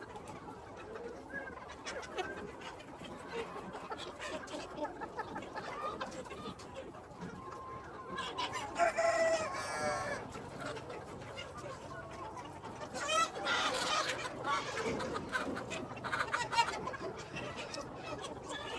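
A flock of free-range chickens clucking steadily, with a rooster crowing about halfway through.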